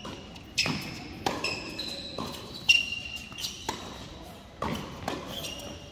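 Tennis ball being struck by rackets and bouncing on an indoor hard court during a doubles rally: about seven sharp hits and bounces, one every half second to a second, with short high-pitched squeaks after several of them.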